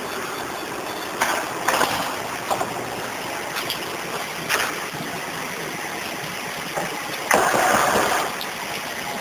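Steady rushing noise of refrigeration or ventilation machinery, with a few sharp clicks in the first half and a louder rush of about a second near the end.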